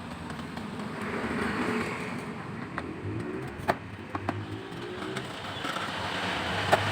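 Steady vehicle engine noise with slow swells, with a few sharp metallic clicks of tools on parts.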